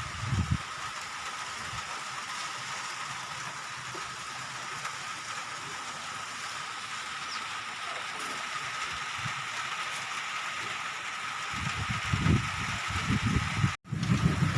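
Steady hiss of wind and rain, with a steady high tone running beneath it. In the last few seconds, gusts buffet the microphone.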